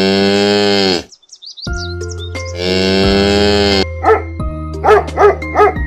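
A cow mooing twice in long, steady calls, then a dog giving several short barks near the end, with background music under the second half.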